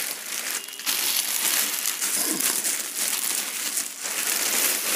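Plastic courier mailer bag and bubble wrap crinkling continuously as hands pull a bubble-wrapped box out of the slit-open bag.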